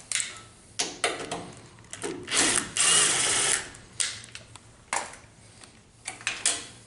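Screws being backed out of a multipoint door handle's metal hardware: a short steady run of a power driver about three seconds in, among a string of clicks, scrapes and rattles as the screws and handle parts are handled.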